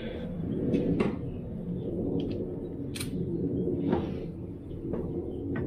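Scattered clicks and knocks of tools and parts being handled during an oil change, over a steady low rumble.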